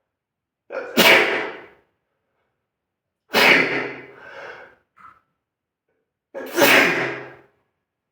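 A person sneezing three times, about three seconds apart. Each sneeze starts with a brief lead-in and then a loud burst.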